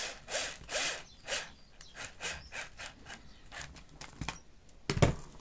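Cordless drill-driver tightening a two-part belt screw through leather, run in short bursts about two a second. A louder knock comes near the end.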